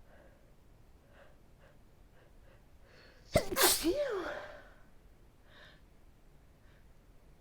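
A single person's sneeze about three seconds in: a sudden sharp burst with a short voiced cry that bends in pitch and fades within about a second. A few faint short breaths come before it.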